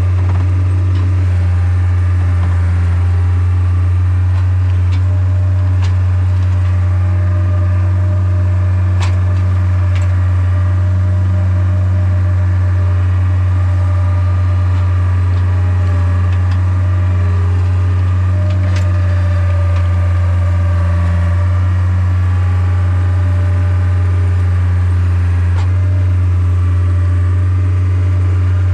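An engine running steadily at idle, a loud unchanging low hum with a few sharp clicks over it.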